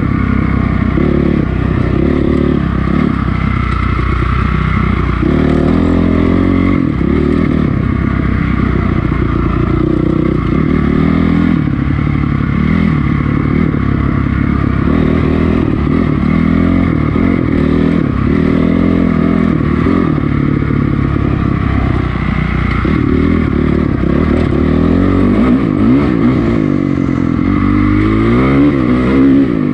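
2006 Honda CRF450R's single-cylinder four-stroke engine under way on a dirt trail, its pitch rising and falling with the throttle, with several quick revs near the end.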